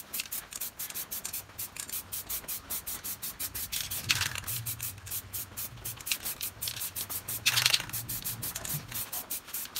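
Aerosol spray-paint can spraying gold paint onto an alloy wheel in quick short hissing bursts, about four a second, with two longer, louder sprays about four seconds and seven and a half seconds in.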